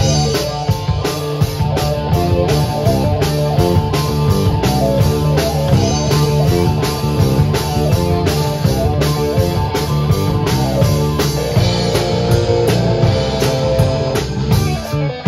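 Live jam-band rock played by a band: electric guitar and electric bass over a drum kit keeping a steady beat.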